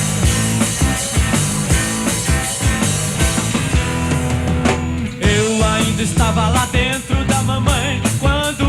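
Live rock band playing an instrumental intro: drum kit, bass, guitars and keyboards in a steady beat. About five seconds in, a lead melody line with bending notes comes in over the band.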